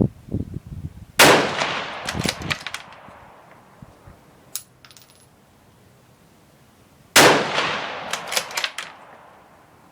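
Two shots from a .243 Ruger Precision Rifle with an M11-style muzzle brake, about six seconds apart, each with an echo that dies away over a couple of seconds. A few sharp clicks follow each shot.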